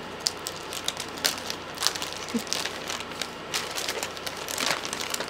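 Packaging crinkling and rustling in irregular crackles as a stuck item is worked out of its sleeve by hand.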